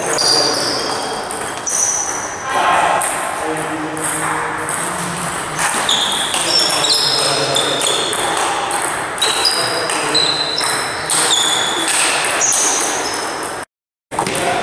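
Table tennis ball rally: many short, high pings as the celluloid ball strikes the table and bats, irregularly spaced and ringing briefly, over voices in the background. The sound cuts out for a moment near the end.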